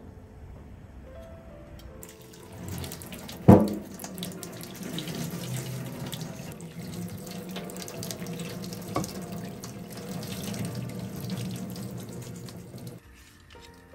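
Hot water poured from a pan through a stainless steel mesh colander into a steel sink, splashing steadily for about eleven seconds as the parboiled pieces are drained. A sharp clank comes about a second after the pour starts, the loudest moment, and a lighter click comes near the middle. Soft background music plays before and after the pour.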